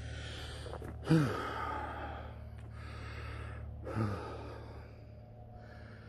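A man breathing hard while hiking, with long breathy inhales and exhales and two louder voiced exhales that slide down in pitch, about a second in and again near four seconds.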